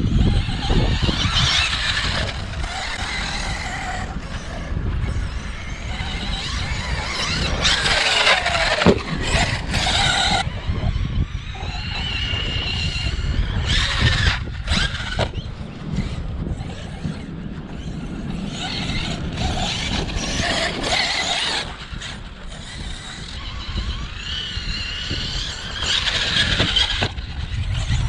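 Arrma Kraton V3 6S RC truck driving, its brushless motor and drivetrain whining up and down in pitch in several passes as it speeds up and slows. Wind rumbles on the microphone underneath.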